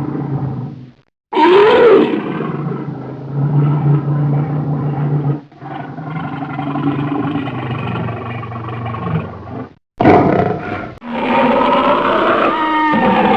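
Tiger roaring and growling in a series of separate low roars, each cut off sharply by a brief silence before the next begins.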